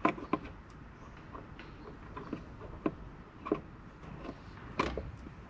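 Wire cutters snipping through the individual wires of a wiring-harness plug: several sharp clicks spaced about a second apart, the loudest right at the start.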